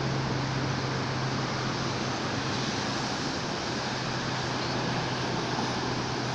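Steady outdoor background noise: an even hiss with a constant low hum, like a distant engine or traffic.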